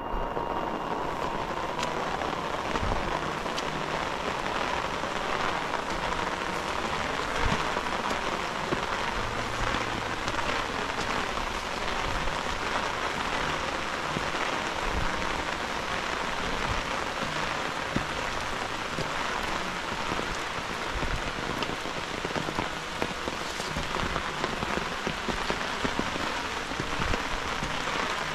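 Heavy rain falling steadily on grass, leaves and wet ground, a dense even hiss dotted with many sharp individual drop hits.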